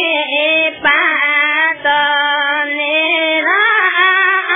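A high voice singing long, held notes that waver in pitch, with short breaks between phrases.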